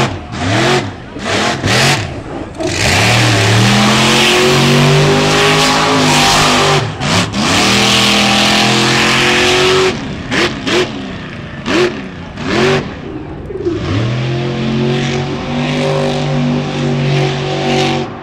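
Monster truck engine revving hard. It opens with a quick string of throttle blips, then holds at high revs for several seconds as the truck spins through dust. Another burst of blips comes about ten seconds in, and a second long stretch at high revs follows near the end.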